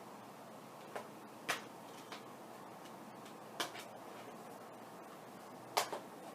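Keys on a quiet keyboard tapped one at a time, about six soft clicks at uneven intervals, the loudest a little after a second and near the end. Under them a steady rushing hiss of wind in the trees coming through an open window.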